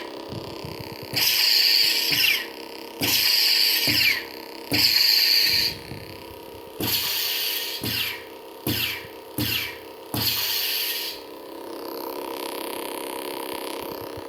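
DIY lightsaber's Plecter Labs Pico Crumble sound board playing its steady electronic hum, overlaid by seven loud effect sounds of about a second or less each, the last few shorter and quicker, and a softer stretch near the end.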